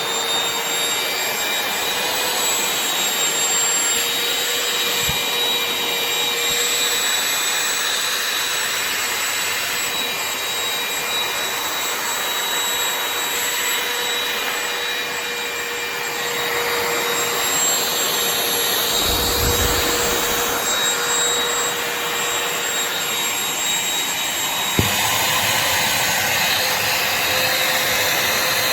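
Shark CH964AMZ cordless stick vacuum running at full power: a steady high motor whine over rushing air. There is a brief low rumble about two-thirds of the way through and a single sharp knock near the end.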